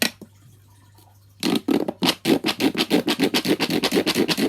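Corrugated plastic pop tube fidget toy being pulled and pushed, a rapid ribbed clicking run of about ten pops a second that starts about a second and a half in and keeps going.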